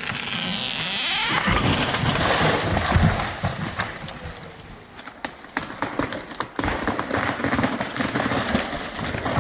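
A felled tree coming down: a rushing sweep through the branches in the first second, then heavy thuds as the trunk and limbs hit the ground around two to three seconds in, followed by scattered cracking and snapping of branches.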